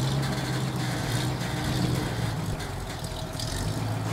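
Engine of road-repair machinery running steadily with a low, even hum.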